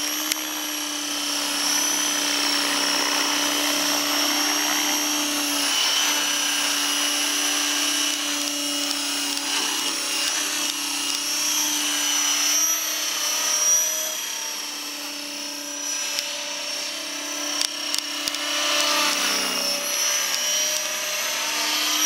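Align T-Rex 550 electric RC helicopter in flight: a steady whine from its motor and spinning rotors, whose pitch dips briefly and rises again near the end.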